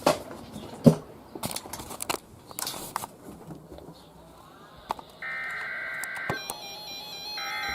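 A few scattered clicks and knocks, then about five seconds in an Emergency Alert System SAME header starts: a harsh digital data burst about a second long, repeated after a one-second gap. The header opens a tornado warning.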